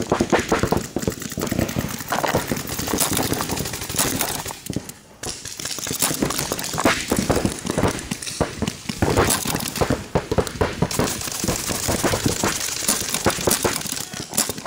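Paintball markers firing in rapid strings, with paintballs smacking against the inflatable bunker close by.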